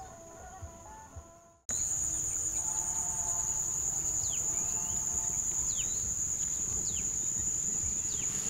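Quiet music at first, then about two seconds in a loud, steady high-pitched insect shrill starts abruptly. A few short bird chirps sound over it.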